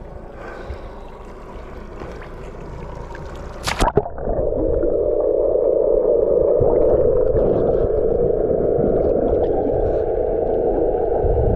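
A splash about four seconds in as the fish and the camera go into the water, then a steady, muffled rush of seawater heard from underwater.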